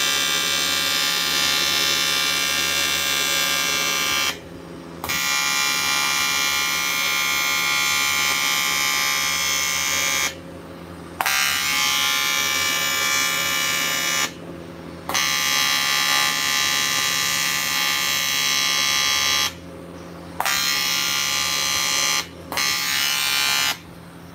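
TIG welding arc buzzing steadily on a leaking cast engine casing. It stops for under a second about five times as the welder pauses, then picks up again.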